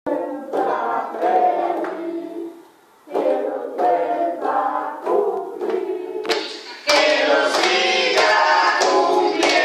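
A group of adults and children singing a birthday song together while clapping along in time, about two claps a second. The singing breaks off briefly a little under three seconds in, then resumes and grows louder and fuller about seven seconds in.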